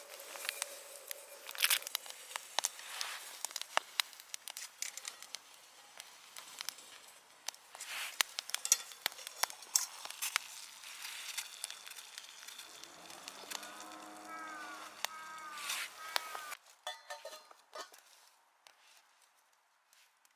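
Food sizzling and crackling over a campfire, with many sharp pops and clicks. A brief wavering pitched squeal sounds about two-thirds of the way through, and the sound then drops to quieter scattered ticks.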